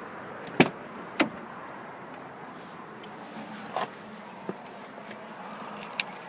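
A keyring jangling, with two sharp clicks a little over half a second apart about a second in and a few softer knocks later.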